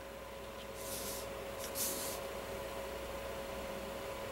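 Brush-tip pen stroking on watercolour paper: a few short, soft scratchy strokes about one and two seconds in, over a faint steady hum.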